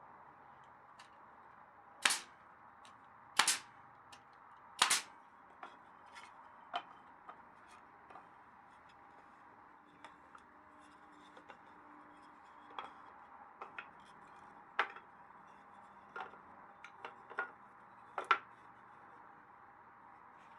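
Sharp knocks and cracks from work on cedar bridge planks: three loud ones a second and a half apart, then a scatter of lighter clicks and taps, with one louder crack near the end.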